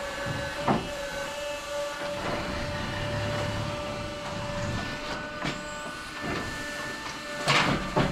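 Stepa hay crane working its grab in loose hay: a steady whine that stops a little over halfway through, with sharp clanks from the crane and grab, the loudest near the end.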